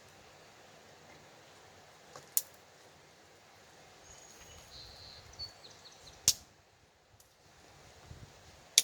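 Dry firewood giving three sharp, loud cracks, about two and a half seconds apart, over a quiet outdoor background. A bird chirps faintly in between.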